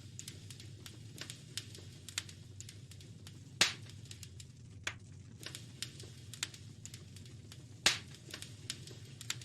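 Wood fire crackling in a fireplace: a steady run of small snaps, with two loud pops, one about a third of the way in and one near the end, over a low steady rumble.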